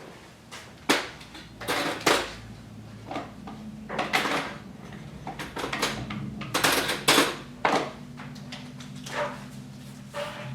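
Irregular clicks, knocks and short scrapes of things being handled and set down on a grooming table, with a faint steady hum underneath.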